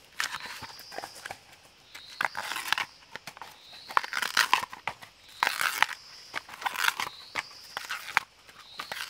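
Dry husk sheaths being torn and peeled off a fresh bamboo shoot by hand, in crackling, tearing bursts of a second or so, the loudest about four and six seconds in. A faint high whistle that rises in pitch repeats about every second and a half.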